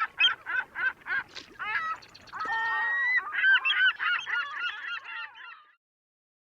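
Seabird calls: a quick run of honking cries, about three or four a second, with one longer held cry about two and a half seconds in. The calls cut off abruptly shortly before the end.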